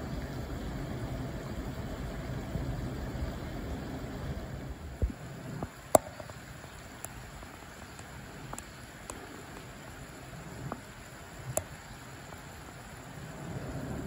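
Low, steady rumbling background noise that eases about five seconds in, with a handful of sharp clicks scattered through the middle, the loudest about six seconds in.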